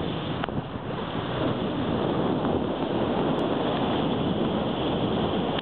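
Steady rush of the ferry's bow wave splashing through the sea, mixed with wind buffeting the microphone.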